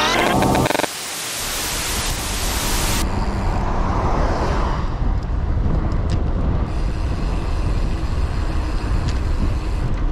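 The tail of a glitch-style transition effect, with harsh static that stops just under a second in and a hiss that cuts off about three seconds in. After that, steady wind rush on the camera and road noise as a bicycle rolls along a paved street.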